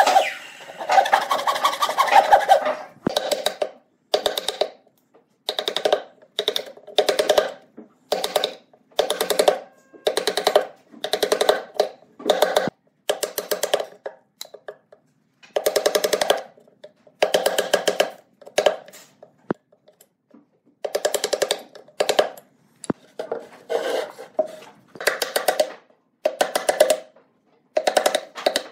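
Hand woodworking tools scraping pine in short separate strokes about a second apart, each with a fine rapid chatter: a saw along the box's corner joint at first, then a hand chisel pushed across the grain.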